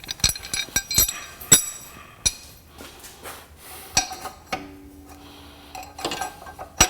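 Steel U-bolts clinking and knocking against the rear axle and leaf-spring mount as they are set in place: a string of irregular sharp metallic knocks with a short ringing tail, loudest about a second and a half in and again near the end.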